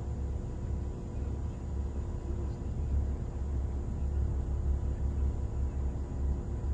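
Low, uneven rumble of wind buffeting the microphone outdoors, with no other clear sound.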